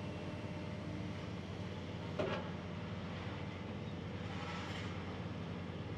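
Steady low rumble of heavy machinery running, with one brief louder clank about two seconds in.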